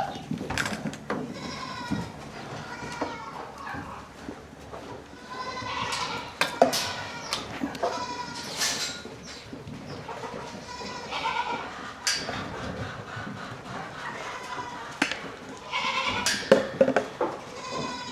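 Goats bleating several times as they come in to the grain, with scattered knocks and clatters between the calls.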